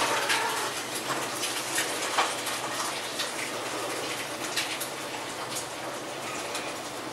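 Two cats scuffling on carpet, a steady rustling hiss of fur and pile with light scratchy clicks. The tail of a short, low cat call is heard right at the start.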